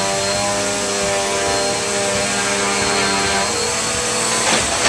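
Upright vacuum cleaner running steadily: a constant motor whine over rushing airflow. Its tone shifts slightly about three and a half seconds in.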